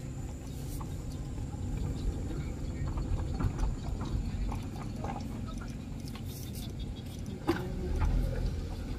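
Low, steady rumble of a car's engine and tyres rolling slowly over a dirt track, heard from inside the cabin, with a few faint clicks and a short higher-pitched sound near the end.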